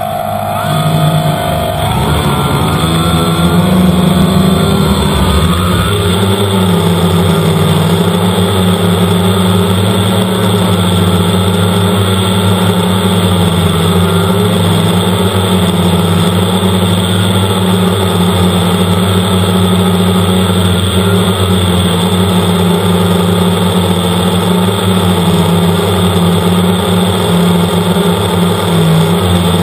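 Quadcopter's electric motors and propellers buzzing loudly, heard from a camera mounted on the craft. The pitch shifts over the first few seconds as it lifts off, then the buzz holds steady in flight.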